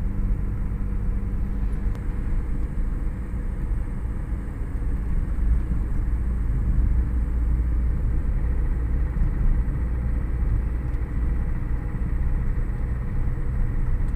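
Steady low rumble of a vehicle driving along a paved road: engine, tyre and wind noise.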